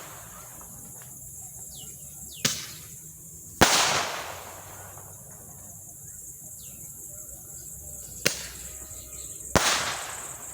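Firework shooter firing: four sharp bangs in two pairs about a second apart, the second and fourth loudest, each with a short trailing echo.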